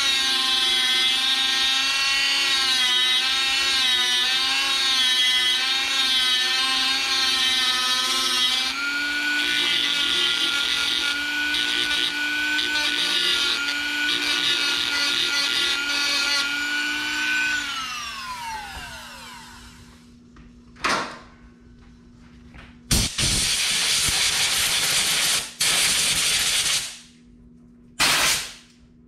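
Dremel rotary tool with a small grinding wheel running at high speed, grinding down the blower's air-intake mount so the new filter adapter clears it; its whine wavers in pitch as it bears on the part. About 17 seconds in it is switched off and spins down with a falling whine, and a few short rushes of noise follow near the end.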